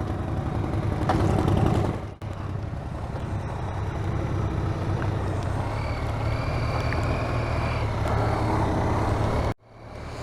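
BMW R1250RT's boxer-twin engine running on the move, mixed with road and wind noise. The sound breaks off sharply about two seconds in and again near the end, and a faint high steady tone sits over it for a few seconds in the middle.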